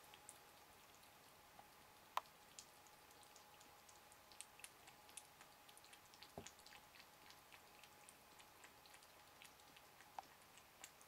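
Brown tabby kitten lapping water from a stainless steel bowl: a faint, quick, irregular run of small wet clicks and drips, with a sharper click about two seconds in and a soft thump near the middle.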